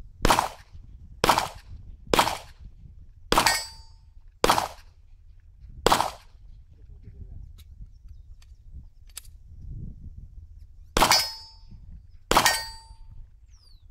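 Glock pistol shots: six fired about a second apart, then after a pause of about five seconds two more. Three of the shots are followed by a short metallic ring from a bullet hitting a steel target plate.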